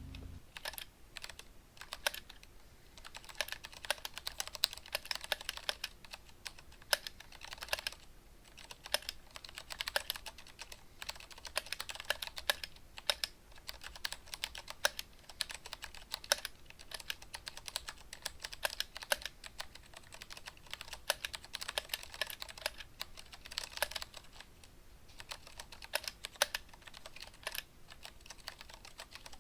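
Typing on an unmodded Vortex ViBe mechanical keyboard with stock Cherry MX Clear switches: a dense, continuous stream of keystroke clicks and clacks. It is the unwanted extra noise of scratchy, unlubricated switches and loose stabilizers.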